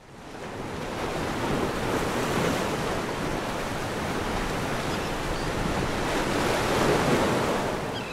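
Surf washing onto a beach: a steady rushing of breaking waves that swells up from silence over the first second.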